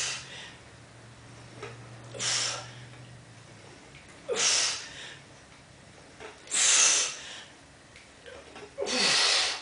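A man breathing hard through his mouth under the effort of barbell curls, one forceful exhale about every two seconds in time with the reps. The last breath, near the end, is longer and carries a falling strained groan.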